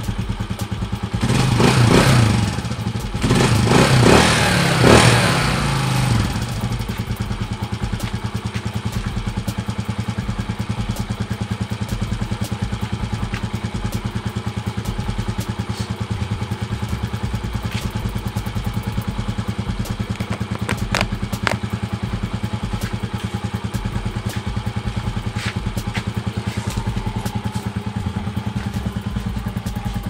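Rusi 150 motorcycle's single-cylinder four-stroke engine revving up a few times in the first six seconds after starting, then settling into a steady, evenly pulsing idle.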